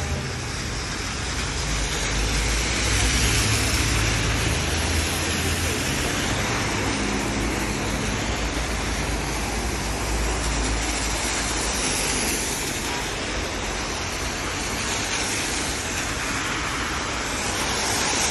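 Traffic on a rain-soaked road: a steady hiss of tyres on wet asphalt, with the low rumble of a passing vehicle through the first half.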